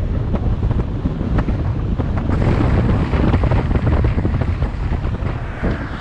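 Strong wind buffeting the microphone in gusts, with ocean surf washing behind it; a broader hiss of surf comes in about two seconds in.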